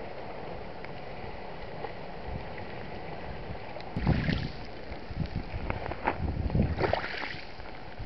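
Small waves lapping and washing over a pebble shore strewn with seaweed, with irregular splashes, the largest about four seconds in and again near seven seconds, over a steady wind rumble on the microphone.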